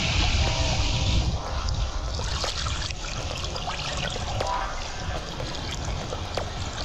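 Sea water sloshing and splashing around an action camera riding at the water's surface. A steady rushing hiss runs for about the first second and then cuts off, leaving an uneven wash with small splashes.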